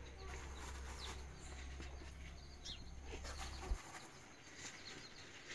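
Faint rustling of rice-husk bedding and light taps as chicken eggs are set into it by hand, with a few short chirps in the background. A low hum stops suddenly with a click about two-thirds of the way through.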